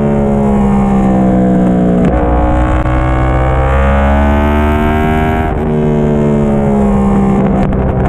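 2010 Yamaha YZF-R1's crossplane-crank inline-four running through a Yoshimura slip-on muffler as the bike is ridden through bends. The engine note falls and rises with the throttle, broken by sudden changes about two seconds in and again about five and a half seconds in.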